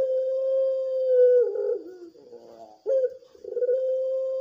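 Puter pelung, a ringneck dove bred for its long voice, cooing. A long held coo drops in pitch at its end about a second and a half in. After a short pause comes a brief opening note and then a second long held coo.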